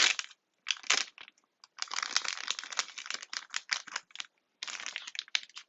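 Plastic packaging of a small toy pack crinkling and crackling as it is opened by hand, in three runs of dense crackle with short pauses between.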